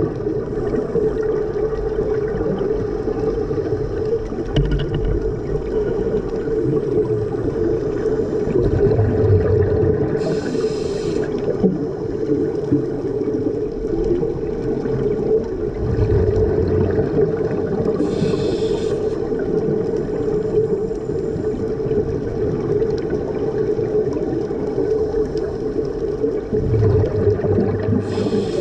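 Underwater sound picked up by a diver's camera housing: a steady low rumble of water and bubbles. A scuba regulator breath hisses three times, about eight seconds apart.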